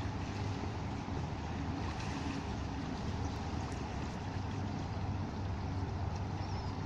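Steady low rumble and hiss of wind and choppy water along the shore, with the drone of distant motorboats.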